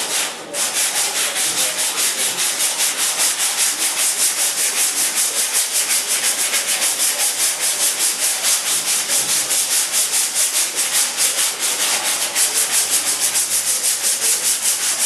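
Sandpaper rubbed by hand in quick, regular back-and-forth strokes, about four to five a second, with a short break just after the start.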